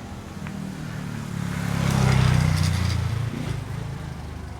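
A motor vehicle passing by: its engine hum swells to a peak about halfway through, then fades away.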